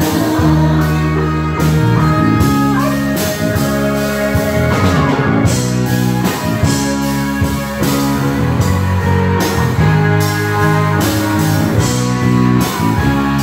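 Live rock band playing an instrumental passage: electric guitar carries the melody over bass guitar, keyboard and a steady drum beat.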